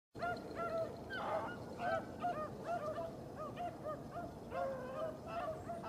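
A pack of beagles baying while running a rabbit: many short, arched howling barks from several dogs overlapping in a continuous chorus.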